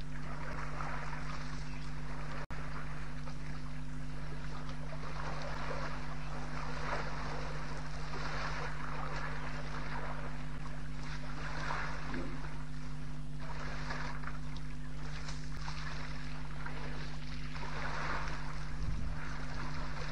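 Steady electrical hum from the waterhole camera's microphone, under gusty rushing noise that swells and fades every second or two. The sound cuts out for an instant about two and a half seconds in.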